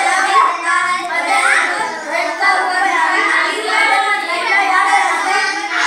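A group of children chanting together in chorus, many voices overlapping in a steady sing-song recitation, likely reading aloud from the books they hold.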